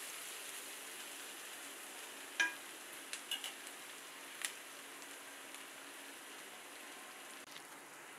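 Sliced onions sizzling steadily in hot oil in a pan. A metal spatula clinks against the pan a few times, the loudest clink about two and a half seconds in ringing briefly.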